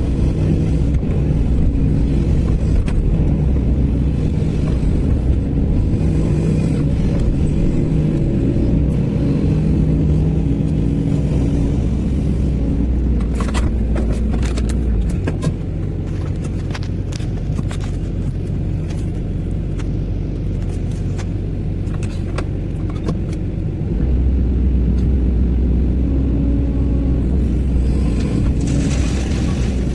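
Sany SY215C excavator's diesel engine running under working load, steady and loud. About halfway through it drops to a lower, quieter note for roughly eight seconds, then comes back up, with a few sharp clicks or knocks just before the drop.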